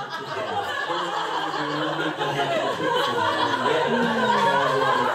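Several people talking over one another and laughing in a large room.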